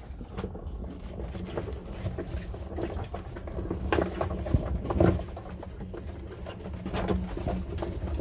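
Blue land crabs crawling over one another in a plastic drum, their legs and claws giving irregular clicks and scrapes against the plastic and each other, busiest about four to five seconds in, over a low steady rumble.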